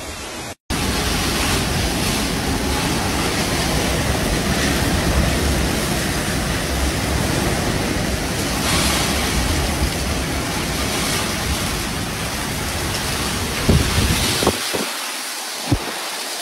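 Hurricane winds and heavy rain: a dense, steady rush of wind and rain, with gusts buffeting the phone's microphone in a low rumble. The sound drops out briefly about half a second in. Near the end the rumble eases and a few short knocks stand out.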